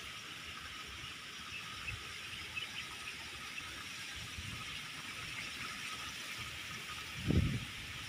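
Outdoor ambience in a grassy field: a steady high hiss, with soft low rumbles now and then and one louder low thump about seven seconds in.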